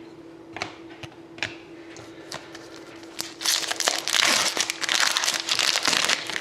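Plastic foil trading-card pack wrapper crinkling and being torn open, starting about three and a half seconds in and lasting about three seconds, after a few light clicks of cards being handled.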